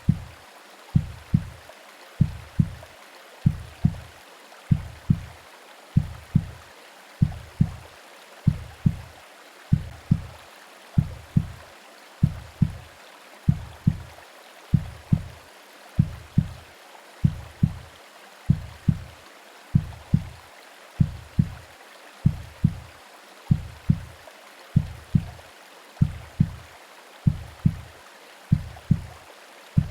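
Recorded heartbeat, as heard in the womb: paired low lub-dub thumps repeating steadily, a little under one beat a second, over a continuous soft hiss of white noise and rain.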